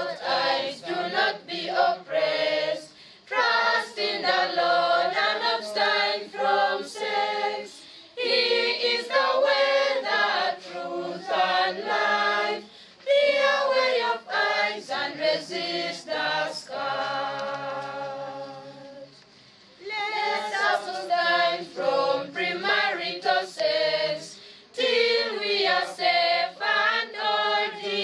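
A small choir singing unaccompanied in harmony. About two-thirds of the way through, the voices hold one long chord that fades away, then the singing starts up again.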